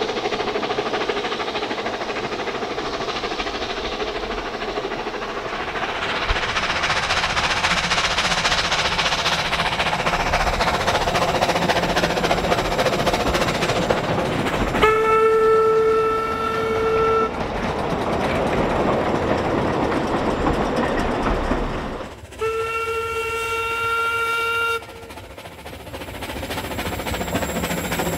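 Narrow-gauge steam train running past, its wheels and locomotive making a steady rumbling clatter. The locomotive's steam whistle gives two long blasts, one about halfway through and one about three-quarters through.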